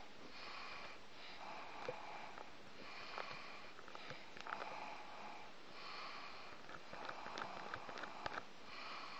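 Snoring: rasping, hissy breaths that come back about every one and a half seconds, with small clicks in between.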